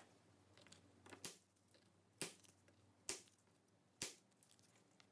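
Four sharp snaps about a second apart as pieces are broken off a small scrap of plexiglass to rough it round, with faint crackling just before the first.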